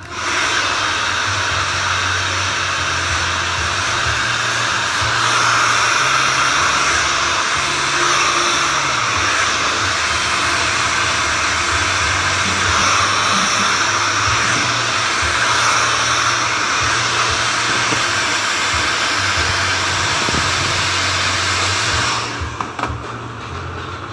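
Handheld hair dryer blowing steadily while hair is blow-dried, then switching off about two seconds before the end.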